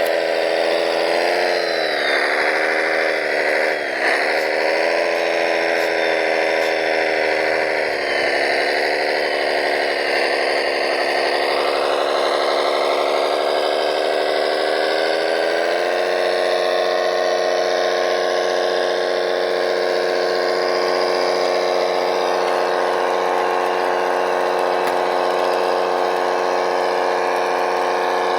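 Small electric motor of a radio-controlled model machine, running with a steady whine. The pitch wavers and dips in the first few seconds, then steps up about halfway and holds level.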